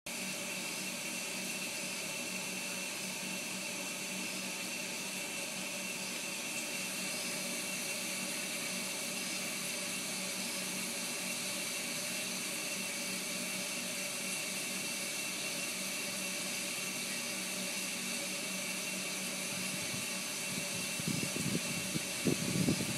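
Steady mechanical hum and hiss with several fixed tones, even throughout. Irregular low rumbling bumps come in near the end.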